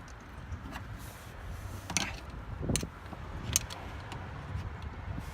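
A few sharp clicks and knocks, spread through the middle, as a rubber heater hose is forced onto a plastic heater hose connector, over a steady low rumble.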